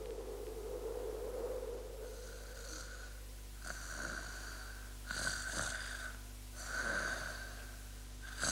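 Cartoon snoring sound effect for a sleeping baby: soft, wheezy, whistling breaths that repeat about every one and a half seconds, beginning about two seconds in.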